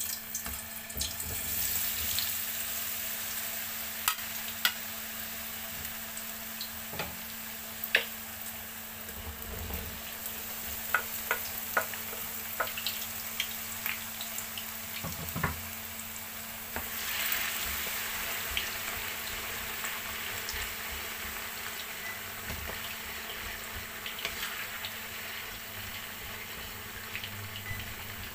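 Diced raw potatoes frying in hot oil in a frying pan: a steady sizzling hiss with scattered sharp pops and spatters, growing a little louder partway through.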